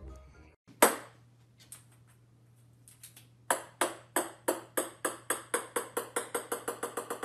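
A small hollow plastic ball, like a ping-pong ball, bouncing on a hard wooden floor: one sharp hit about a second in, then a long run of bounces that come faster and faster and grow fainter as the ball settles.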